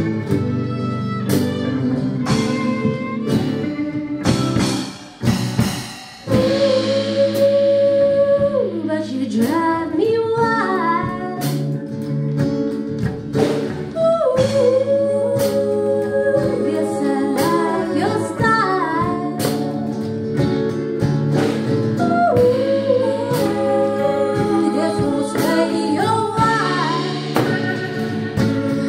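Live acoustic band playing: fiddle, cello, acoustic guitar and drums, with the music dipping briefly about five seconds in before a woman's voice comes in singing lead over the band.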